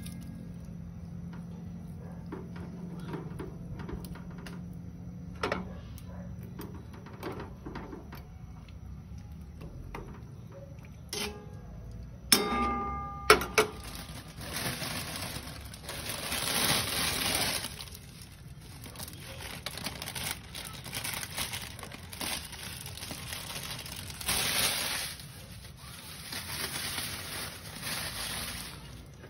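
Cooking at a stove with a stainless steel pan of simmering broth: scattered light taps and clicks, a sharp ringing clink of metal or glass about 12 seconds in, then hissing, crackling noise that swells twice as crispy fried noodles are piled into the pan.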